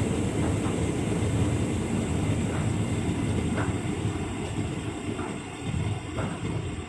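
Hotpoint Ultima S line tumble dryer running: a steady low rumble from the turning drum and fan, with a few faint light knocks now and then.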